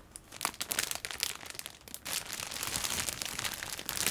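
Clear plastic wrapping bag crinkling as a doll is handled inside it: scattered sharp crackles for about two seconds, then denser continuous rustling.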